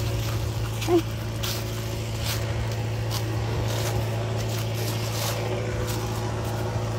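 A motor running steadily at constant speed: an even low hum with steady overtones, with scattered short rustles and crackles over it.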